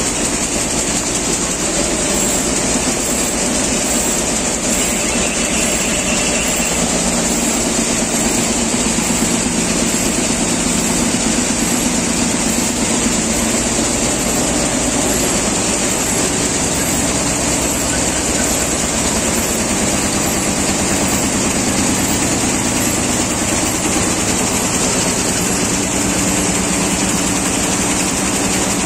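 64-inch multi-needle shuttle quilting machine running, its needle bars stitching with a rapid, even mechanical clatter at a steady level.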